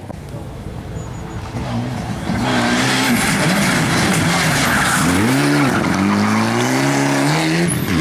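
Rally car on a special stage, its engine getting much louder about two and a half seconds in, the note dipping as the driver lifts and then climbing again under full throttle before dropping away near the end.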